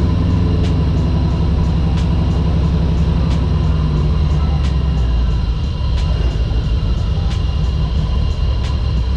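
Car engine idling with a misfire, one cylinder not firing. A steady low running sound carries a sharp tick about every two-thirds of a second, and it grows a little rougher about halfway through.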